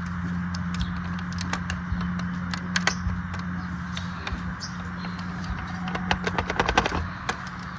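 Handling sounds while a die-cast model car and its packaging are unboxed: scattered clicks and taps, with a quick run of clicks near the end, over a steady low hum.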